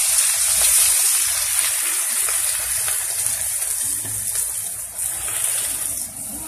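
Chopped onions sizzling in hot oil in a frying pan just after being tipped in, a steady crackling hiss that slowly dies down.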